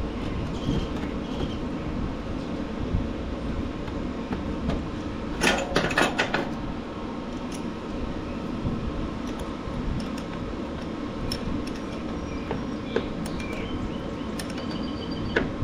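Steady shop fan noise with small metallic clinks of hand tools and hardware as a battery terminal nut is fastened. A quick run of sharp tool clicks comes about five and a half seconds in.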